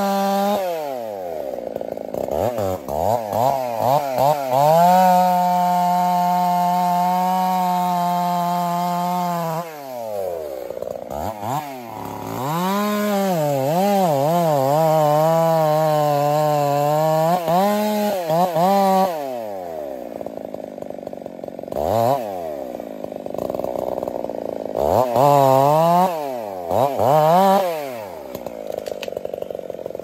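Two-stroke chainsaw cutting into a standing tree: the engine runs at full throttle in the cut, its pitch dipping and recovering under load, and drops back to idle between cuts several times. Near the end it idles with a few short revs.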